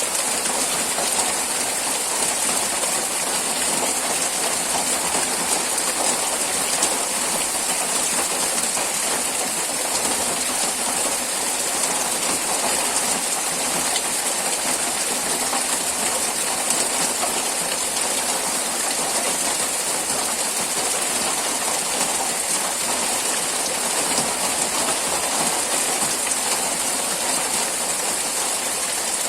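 Steady, heavy rain falling continuously, a dense hiss of drops with no letup.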